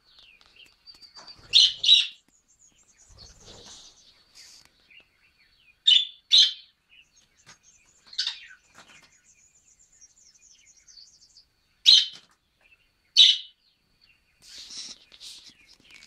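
Budgerigars calling: loud, sharp chirps, mostly in pairs a few seconds apart, over quieter high chattering and warbling.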